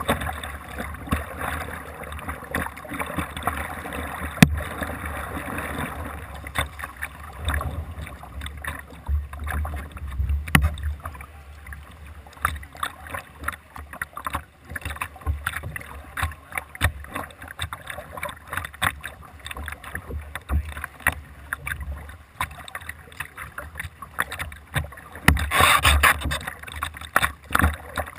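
Double-bladed kayak paddle strokes dipping and pulling through pool water, with irregular splashing and dripping. A louder burst of splashing comes near the end.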